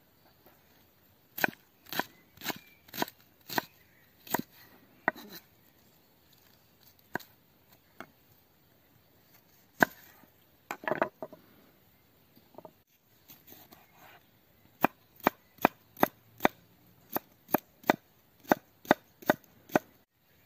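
Kitchen knife chopping vegetables on a wooden log-slice chopping board: a series of sharp knocks on the wood, about two a second at first, a few scattered strokes in the middle, then a quicker, even run near the end as a cucumber is diced.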